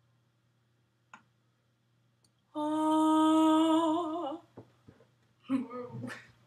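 A girl's voice holding one long sung note for about two seconds, steady and then wavering just before it stops. About a second later come a few short, broken vocal sounds.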